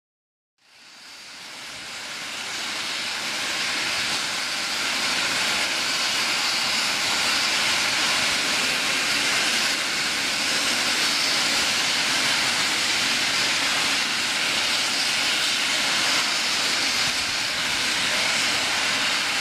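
Steam hissing steadily from a standing steam train, fading in about half a second in.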